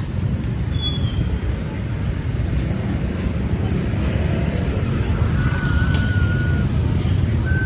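Steady low rumble of street traffic, with a few brief high chirps over it.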